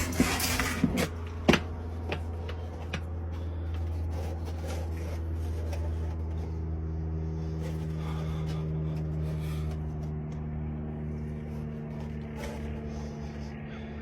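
A steady low mechanical hum, with a few sharp clicks in the first second and a half.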